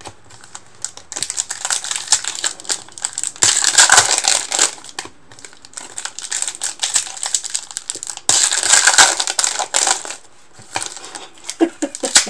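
Foil trading-card pack wrappers being torn open and crinkled by hand, in bursts a few seconds apart, with lighter rustling in between.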